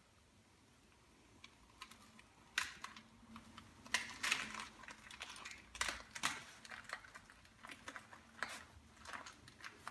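Faint, irregular crackling and rustling as a flour tortilla wrap filled with lettuce, cheese and potato crisps is rolled up by hand.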